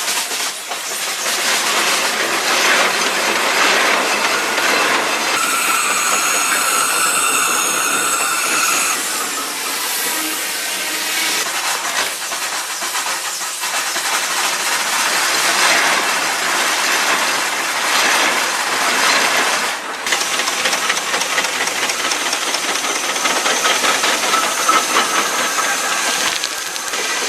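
Marion steam shovel's steam engines hissing steadily as the machine works, with a high pitched tone held for about three seconds, starting about five seconds in.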